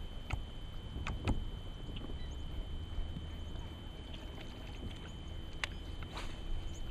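A steady low rumble and a constant thin high whine, with about five sharp clicks and knocks scattered through, two close together about a second in and another near the end. These are the small deck and tackle noises of an angler working a rod and reel from the bow of a bass boat.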